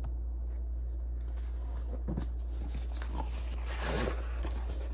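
Cardboard boxes being handled and opened: a few short rustles and scrapes over a steady low hum.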